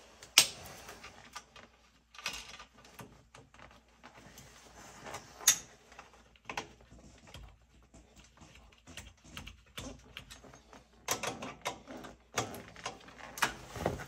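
Scattered metallic clicks and knocks of hand tools and parts being handled on an oil burner's nozzle assembly, with a sharp click about half a second in and a busier spell of clicking near the end.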